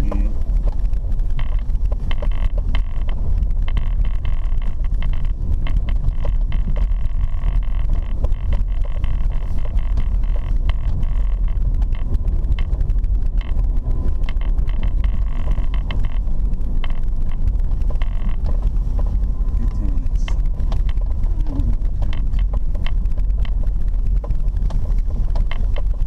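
Car cabin noise while driving over a rutted dirt road: a steady low rumble of engine and tyres, with frequent small knocks and rattles as the car rides over the bumps.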